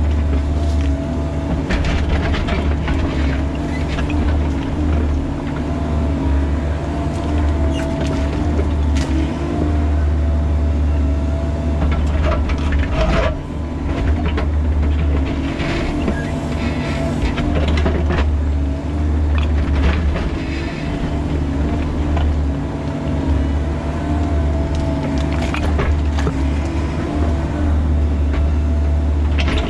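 Bobcat E45 mini excavator's diesel engine running under load, with a steady whine, as the bucket digs a trench through rock; scattered knocks and scrapes come as the bucket strikes and drags stone.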